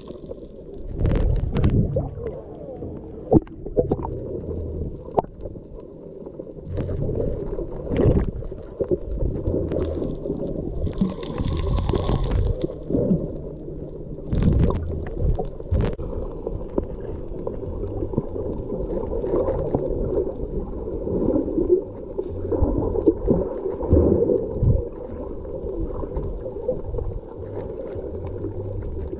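Muffled underwater sound through a camera held below the surface: water gurgling and sloshing, with a few sharp knocks and a brief hissing swell near the middle.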